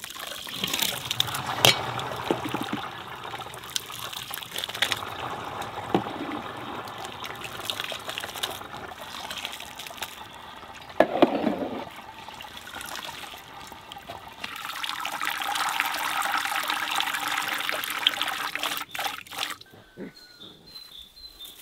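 Hot water splashing and trickling as parboiled rice is scooped from the boiling pot and poured into a perforated metal colander to drain, with a steadier pouring stream for a few seconds in the second half.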